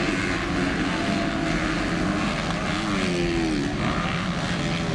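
Several motocross dirt bike engines racing together in a steady drone, revs rising and falling; one engine's note glides down about three seconds in as it comes off the throttle.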